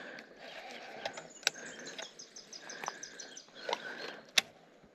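Baitcasting reel being wound, a light mechanical whir, with a few sharp clicks from the rod and reel being handled.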